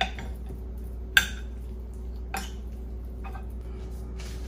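A few sharp clinks and knocks of a plate as raw beef short ribs are handled and rubbed with seasoning, the loudest about a second in, over a steady low hum.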